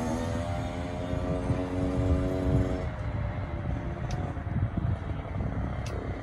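Kawasaki KX65 two-stroke dirt bike engine running at a steady pitch, then fading out about three seconds in as the bike rides off into the distance.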